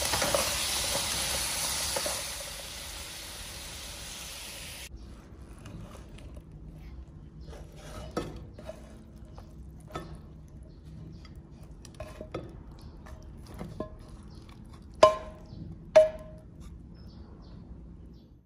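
Glazed tofu sizzling in a nonstick frying pan as it is stirred with a wooden spatula and chopsticks, the sizzle cutting off abruptly about five seconds in. Then soft clicks as the tofu is slid onto a plate, and two sharp ringing clinks against the plate near the end.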